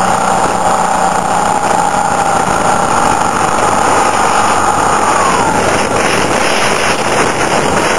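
Motorcycle riding at speed: the engine runs steadily under heavy wind rush on the microphone, and its note drops about five seconds in.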